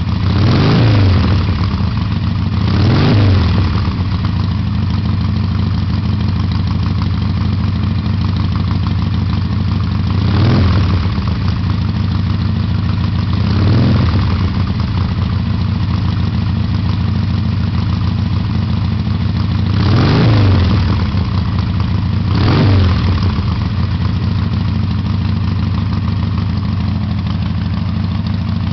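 Harley-Davidson V-twin through Screaming Eagle aftermarket exhaust pipes, loud, idling steadily and blipped six times, each rev rising and dropping quickly back to idle, the revs coming in pairs a few seconds apart.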